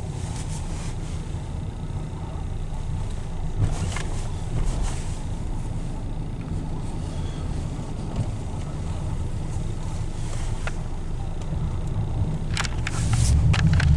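Car cabin noise while driving: a steady low rumble of engine and tyres, swelling a little near the end, with a few short clicks or rustles in the last second or so.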